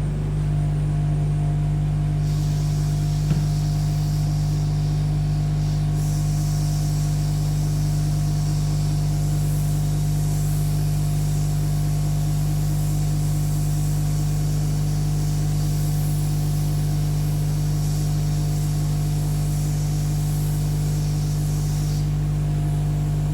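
Hot air rework gun running, its fan giving a loud, steady hum with a hiss of blowing air that strengthens about two seconds in and eases near the end, as it heats solder to seat a phone's charging jack.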